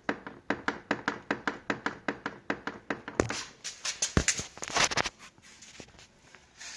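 Quick, even run of clunks, about five a second, from the front end of a D3 Audi S8 as the steering wheel is rocked back and forth. About three seconds in it turns into a louder, denser clatter for a couple of seconds, then fades to faint knocks. The owner places the clunk near the steering rack but cannot pin down its cause.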